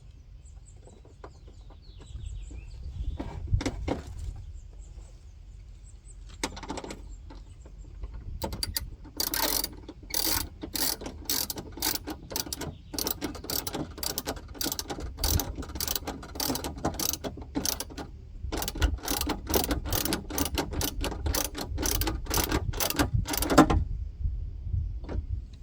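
Hand ratchet wrench clicking as it runs in the bolts that mount the window regulator in a car door. A few scattered clicks come first, then steady clicking at about three a second that stops shortly before the end.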